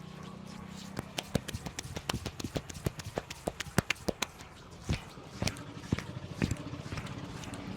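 Rapid hand strikes of an Indian head massage: quick claps and taps on the head, several a second, that thin out to a few spaced slaps after about four seconds.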